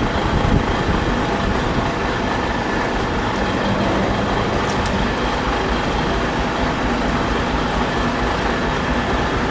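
Fire engine's engine and pump running steadily: a loud, even rumble with hiss.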